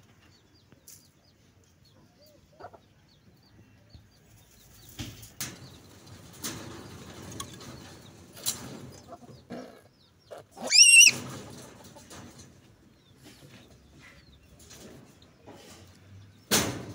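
Rabbits shifting and scuffling on a wire-mesh cage floor as a buck mounts a doe, with scattered knocks against the cage. About eleven seconds in comes a short, high, wavering animal call, the loudest sound, and a sharp knock comes near the end.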